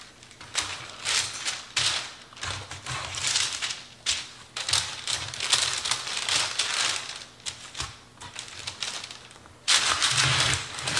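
Parchment paper crinkling and rustling in irregular bursts as dough is twisted and shifted on it, with a louder rustle near the end.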